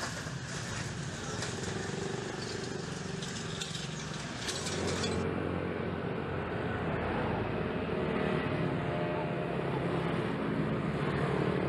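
City street traffic noise, motorbikes and cars going by with faint voices. About five seconds in the sound changes, turning duller and a little louder.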